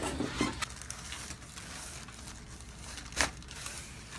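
Rustling and crinkling on a chiropractic treatment table, with one sharp crack a little past three seconds in.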